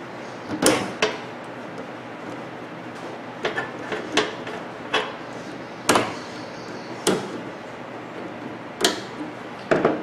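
Scattered sharp clicks and light knocks, about nine spread unevenly, as hands refit the wire connectors on the new high-voltage capacitor inside an opened microwave oven.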